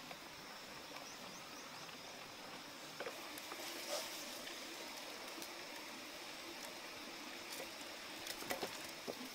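A wooden spatula tapping and scraping in a metal wok as food is stirred, a few light knocks about three and four seconds in and again near the end, over a soft steady background hiss.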